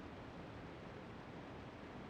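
Faint steady hiss, even throughout, with no distinct events.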